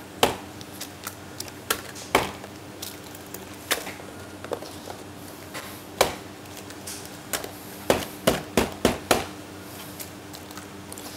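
Eggs being cracked one after another against the rim of a plastic measuring jug: sharp, irregular taps of shell, with a quick run of several taps near the end, over a steady low hum.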